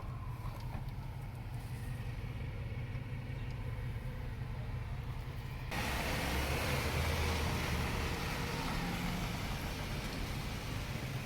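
City street traffic: vehicles running with a steady low hum. About halfway through, the sound cuts abruptly to louder, hissier street noise.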